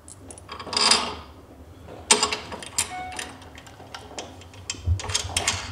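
Small metal bolts and a hex Allen key clinking and clicking in the hands, with a bolt being fitted into a steel hitch bracket on a plastic bumper. After a soft rustle about a second in come many short, sharp ticks and clicks.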